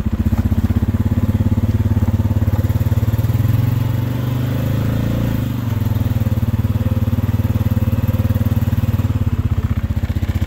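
ATV (four-wheeler) engine running while being ridden. The engine eases off briefly near the middle, then picks back up.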